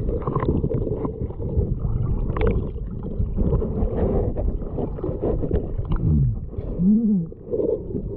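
Muffled underwater sound of water churning and gurgling around a submerged camera as people wade down submerged steps. It is a low, dull rumble with almost no high sound, and a couple of brief muffled tones rise and fall near the end.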